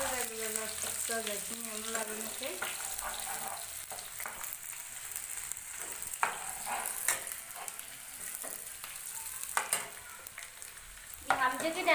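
Food frying in hot oil in a wok, a steady sizzle, with a metal ladle stirring it and knocking against the pan a few times.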